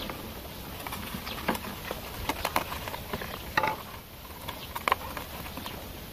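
Dry coconut leaf sheath and cardboard being handled and bent, giving a few scattered sharp crackles and scrapes over a steady low background.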